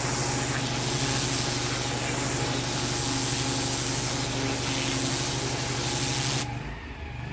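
Pressure washer jet spraying onto block paving: a steady hiss over the low, pulsing hum of the machine's motor and pump. The spray cuts off about six and a half seconds in, leaving the lower hum.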